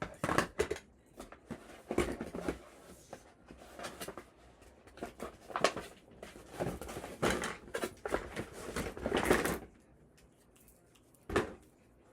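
Handling noises of a hair dryer set and its attachments: irregular rustles, knocks and clatters that stop about ten seconds in, with one more knock near the end.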